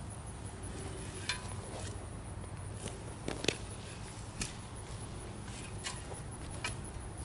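Irregular sharp knocks and snaps of hand work clearing out a small tree and its roots, about eight in all, the loudest about halfway through, over a low steady rumble.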